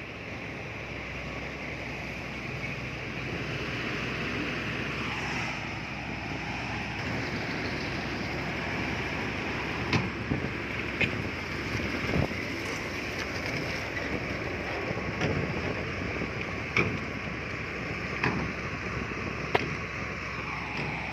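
Heavy earthmoving machinery running steadily, with a string of sharp knocks and clanks from about halfway through.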